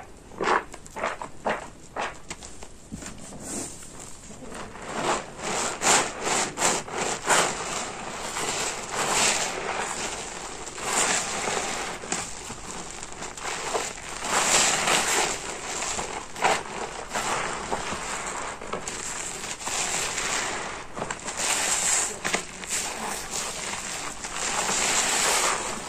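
A stiff, porous car sponge loaded with thick soap foam being squeezed and kneaded by hand, the suds crackling. Separate sharp crackles come in the first few seconds, then a denser crackle that swells and fades with each squeeze.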